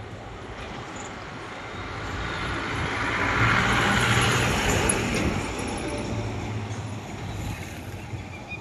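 Diesel multiple-unit passenger train running on the line: a steady low engine hum under a hiss of wheel-and-rail noise that swells to its loudest about halfway through and then fades.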